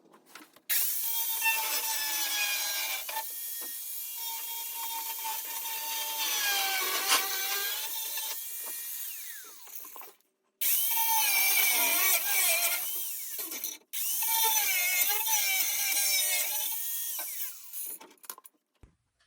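A handheld power tool trims a car's fiberglass fenders to clear the tyres. It runs in three long passes, pausing briefly twice, and its whine sags and recovers as the cut loads it.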